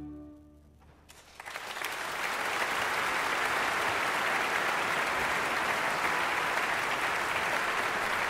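An orchestra's final held chord fades away, and after a brief hush a large concert-hall audience breaks into applause, swelling within about a second to steady, loud clapping.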